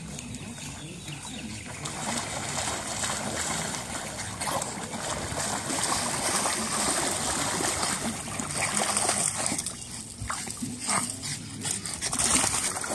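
Pugs paddling and running through shallow flood water, splashing steadily, louder from about two seconds in, with a few sharper splashes near the end.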